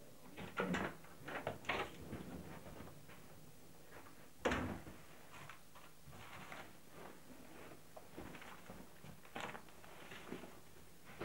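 A front door being opened and shut in a hallway: a run of clicks and knocks, with one louder thud about four and a half seconds in and a few softer knocks after it.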